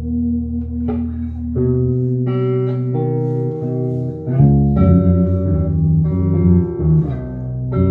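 Instrumental passage of a song with no singing: guitar chords over a bass line. The band comes in fuller and louder about four and a half seconds in.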